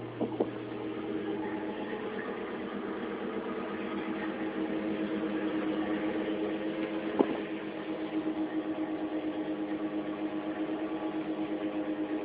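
A boat's engine running steadily, a droning hum with a regular pulse in its second half. A sharp knock comes near the start and another about seven seconds in.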